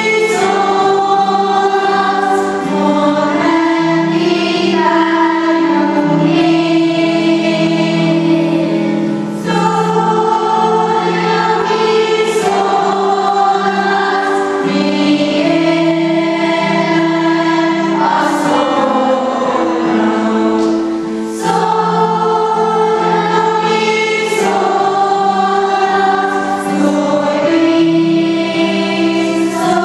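A girls' school choir singing a slow song in long held notes, the phrases breaking briefly twice.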